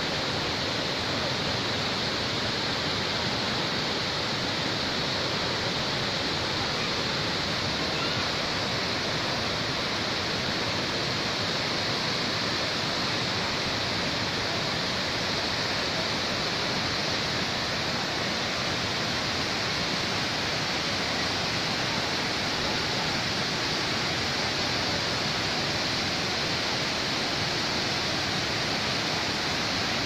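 Multi-tiered waterfall cascading over terraced rock, a steady, unbroken rush of falling water.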